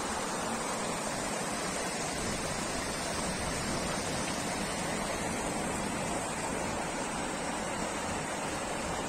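Floodwater rushing down a steep street in a torrent, a steady, even sound of fast-running water.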